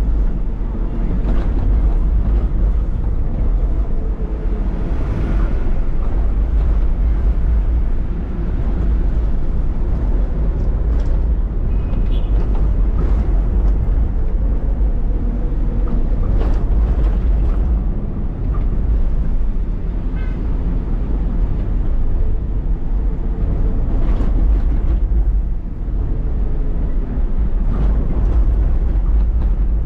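Loaded lorry's diesel engine and tyre noise heard from inside the cab while driving, a steady low rumble.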